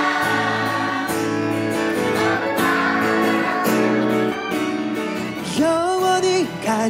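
A crowd singing a ballad chorus together over a strummed acoustic guitar. Near the end a single male voice takes up the melody alone.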